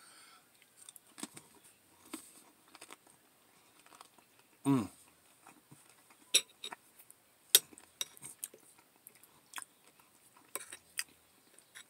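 Spoon clicking against a bowl of lentil chili, with quiet chewing between the clicks. There is one short falling hum from the eater about halfway through.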